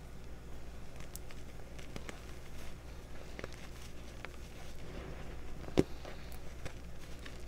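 Hands squeezing and crumbling chunks of reformed gym chalk in loose chalk powder: soft crunching with scattered small cracks, and one louder sharp snap about six seconds in. A steady low hum runs underneath.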